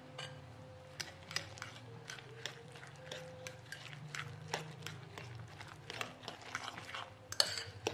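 Metal spoon stirring a wet mix of beaten duck eggs, chopped sausage and spring onions in a glass bowl: squelching with irregular clicks of the spoon against the glass, louder and more frequent near the end.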